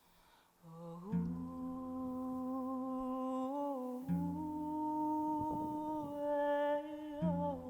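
A voice humming a slow lullaby melody in long held notes. Under it, a low accompanying note sounds afresh about every three seconds.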